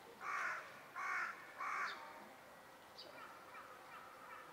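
A crow cawing three times in quick succession, followed by faint chirps.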